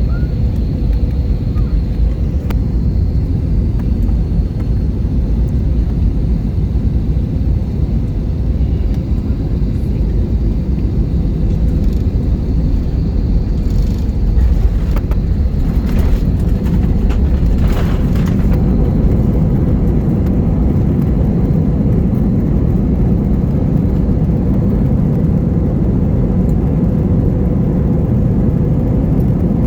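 Airliner cabin noise during landing: a steady low rumble of engines and airflow, with a few sharp knocks about halfway through, after which the rumble grows a little stronger.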